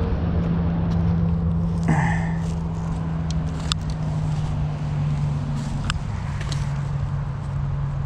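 Footsteps of someone walking along a creek bank, with a few sharp clicks and rustles, over a steady low hum.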